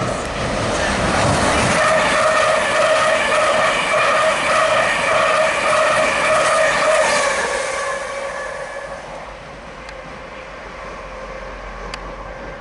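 LNER Hitachi Azuma high-speed train running past close by, with a loud squeal of several steady high tones over the running noise. The squeal fades away after about eight seconds, leaving a quieter rumble.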